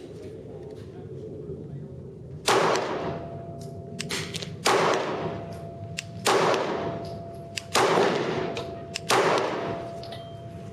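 Glock 19 9mm pistol fired five times in slow aimed fire, the shots about one and a half to two seconds apart. Each shot is followed by a fading echo.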